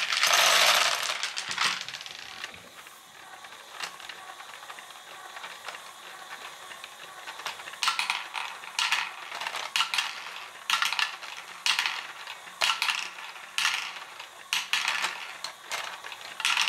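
Small plastic LEGO Great Ball Contraption balls are poured into a plastic hopper with a loud rattle, then a LEGO ball-pump module runs with a faint motor hum and the clack of balls being pushed through the pump, from about halfway on coming roughly once a second.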